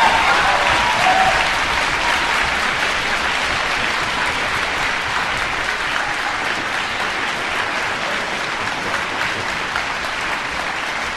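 Large audience in a concert hall applauding steadily, slowly easing off a little.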